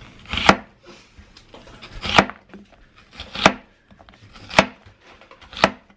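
Kitchen knife slicing an onion thinly on a plastic cutting board: five slow strokes about a second apart, each a crisp cut through the onion ending in a knock of the blade on the board.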